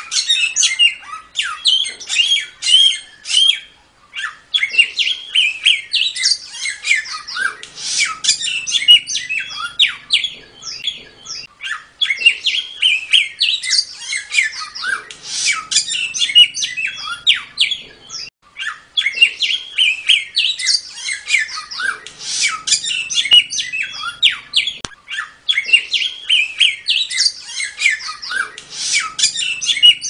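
Samyong songbird singing gacor in fast 'tembak' style: dense runs of quick, high chirping notes that repeat in phrases about every seven seconds with short breaks between them.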